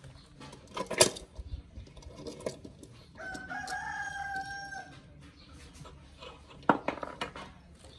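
A rooster crows once, a single drawn-out call of nearly two seconds starting about three seconds in. Sharp knocks sound about a second in and again near seven seconds, as the pinion shaft and housing are handled.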